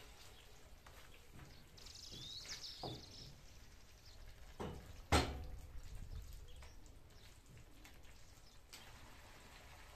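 A wooden spatula stirring and scraping thick minced-meat tomato sauce around a non-stick frying pan, with a sharp knock against the pan about five seconds in.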